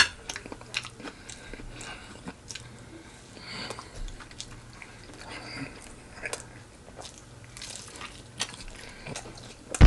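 Close-up eating sounds: biting into and chewing crispy fried chicken, with many short, irregular crunches and mouth clicks.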